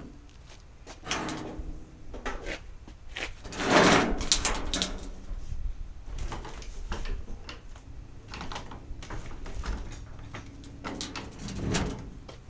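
Irregular knocks, clunks and scrapes of things being handled and moved, the loudest clatter about four seconds in.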